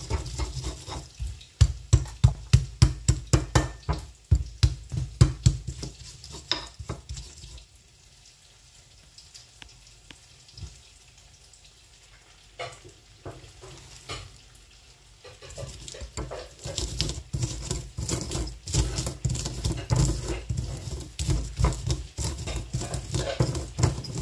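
Stone pestle pounding and grinding in a stone mortar (Indonesian ulekan and cobek): rhythmic knocks, about three a second, as garlic and chillies are crushed. After a quiet pause of several seconds the grinding starts again, faster and denser, with fried peanuts being crushed into the paste.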